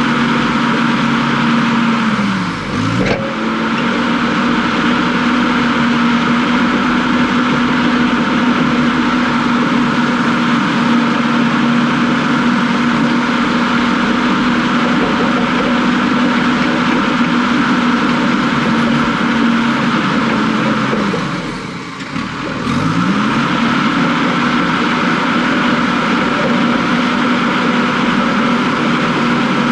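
Heavy earthmoving machine's diesel engine running at high, steady speed, twice dipping sharply in speed (about 3 s in and about 22 s in) and climbing back within a second or so.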